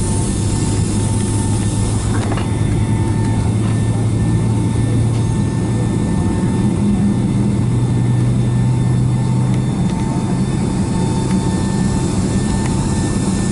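Boeing 757-200 cabin noise on the ground before takeoff: the twin jet engines running at low thrust with a steady low hum, over the hiss of the cabin air.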